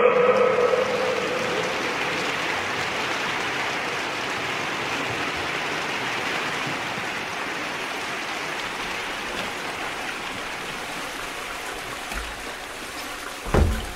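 Steady rushing noise, slowly fading, with one loud low thump near the end.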